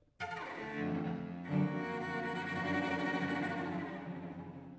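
Three cellos playing together in a bowed trio, coming in together all at once, with a stronger accented chord about a second and a half in.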